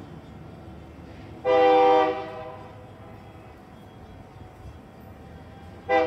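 Locomotive air horn sounding a short chord blast about a second and a half in, then a second short blast starting just before the end, over steady background noise.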